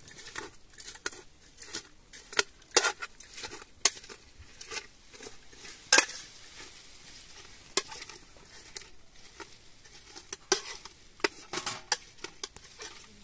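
Utensil stirring and scraping in a cooking pot: irregular clinks and scrapes, a few of them sharp and loud, over a faint steady hiss.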